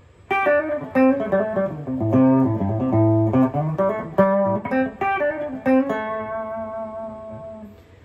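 Baker B1 electric guitar being played: a quick run of notes starts just after the beginning. It ends on a held note that rings for about two seconds and fades out.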